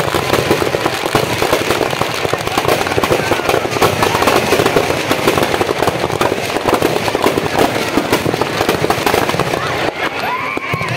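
Firecrackers packed inside a burning Ravan effigy going off in a dense, continuous crackle of rapid bangs, with crowd voices underneath.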